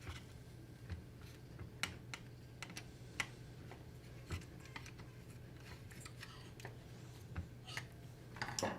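A hand tool working on parts inside a framing nailer's housing: scattered small, sharp clicks and light scrapes, with a cluster near the end, over a faint steady low hum.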